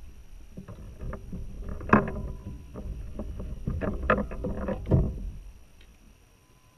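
Irregular knocking and clattering on a plastic sit-on-top kayak as the angler shifts about and handles gear, with two sharp knocks about two and five seconds in.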